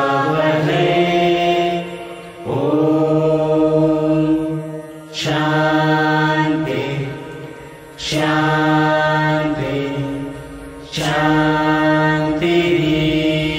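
A group of adult voices singing a prayer chant together in long, held notes. A new phrase starts sharply about every three seconds.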